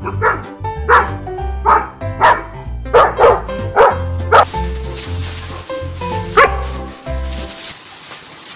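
A shepherd-type dog barking repeatedly: about eight sharp barks in the first four and a half seconds and one more a couple of seconds later, over background music.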